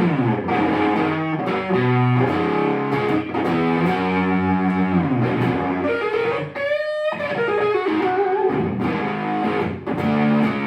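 Electric guitar, a customised Stratocaster, played through a lightly distorted amp: strummed chords and single-note lines, with a short rising pitch glide about two-thirds of the way through.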